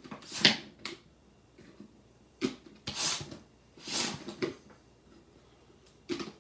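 Eggstractor egg peeler being pushed down by hand again and again, forcing a hard-boiled egg through it: a series of short rustling, scraping pushes, each under half a second, with quiet gaps between.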